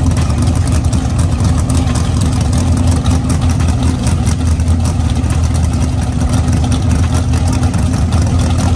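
Drag race car's engine idling loudly and steadily at the start line.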